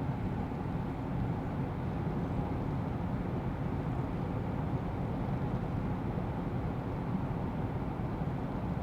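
Steady road and engine noise inside the cab of a GAZ Sobol 2752 van driving along a highway.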